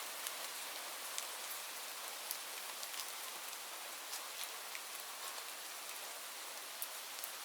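Steady rain: an even hiss with scattered sharp ticks of single drops landing.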